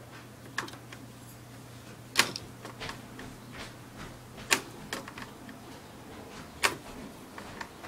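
Sharp clicks and knocks of plastic laptop parts being handled, a handful of separate strikes, the three loudest about two seconds apart.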